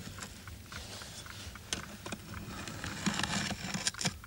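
A small hand tool scraping and picking at loose soil around a bomb casing: scattered light ticks and scratches, with a denser scratchy stretch about three seconds in.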